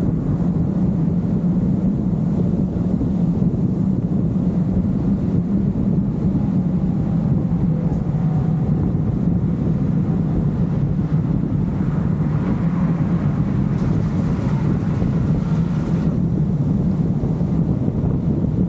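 Steady low rumble of a car on the move: road and wind noise, even in level throughout.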